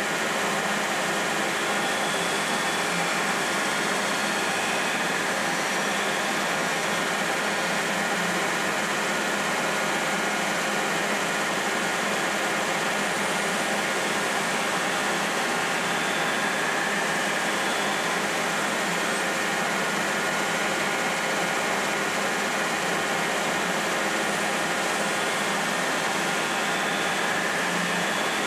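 Belt grinder running with a steady, even hiss as a hardened steel chef's knife blade is held to the abrasive belt to grind its bevels, slowly and lightly so as not to overheat the hardened steel.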